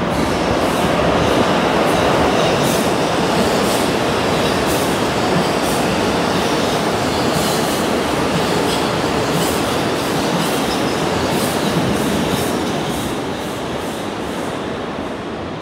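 A 10-car Bombardier R179 subway train running through an underground station at express speed without stopping: a loud, steady noise of steel wheels on rail, with repeated sharp clicks as the wheels cross rail joints, fading near the end as it goes into the tunnel.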